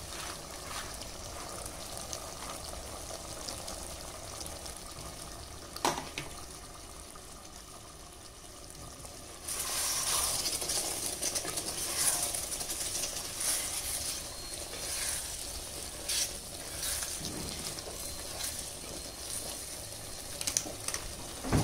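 Curry simmering in a clay pot, with a single knock about six seconds in. From about halfway, a ladle stirring the pot, louder sizzling with repeated scrapes and knocks against the clay.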